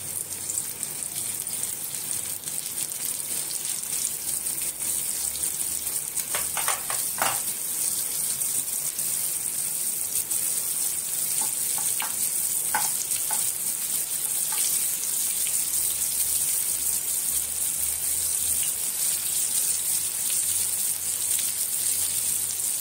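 Semolina-coated surmai (kingfish) steaks sizzling in hot oil on a flat tawa, a steady hiss that grows a little louder as more pieces are laid in. A few short clicks come about six to seven seconds in and again around twelve to thirteen seconds.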